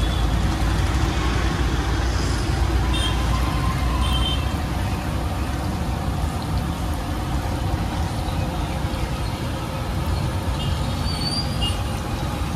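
Steady rumble of road traffic from passing vehicles, with a few short high tones sounding over it.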